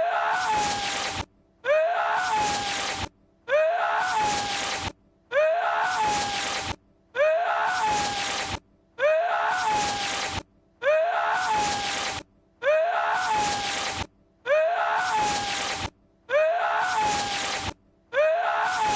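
A man's strained, drawn-out cry that sounds like a sneeze: Lord Voldemort's film-voice clip looped over and over. It comes about ten times, each cry rising in pitch at its start, then holding, with a short silent gap about every two seconds.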